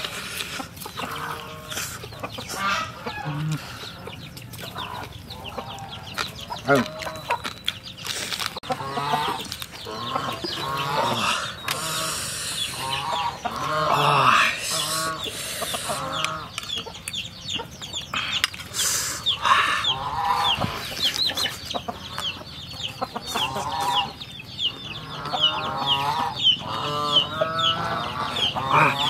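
Chickens clucking over and over, with a fast run of high chirps through the second half, alongside close-up chewing and biting of grilled crocodile meat.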